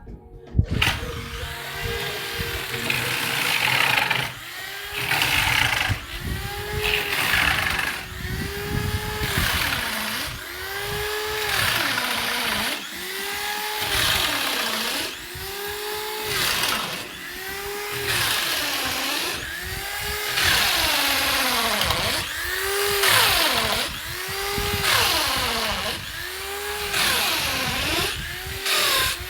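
Power tool motor whining, its pitch rising and then falling in a repeating arch about every two seconds, with a rasping noise over it.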